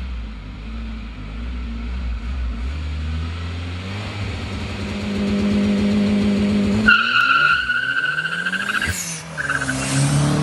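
Turbocharged VW Gol 2.0 four-cylinder engine accelerating hard, its pitch climbing for several seconds. About seven seconds in the engine note drops away and a shrill high-pitched fluttering screech takes over for about a second and a half. The engine then pulls again, loudest as the car passes close by near the end.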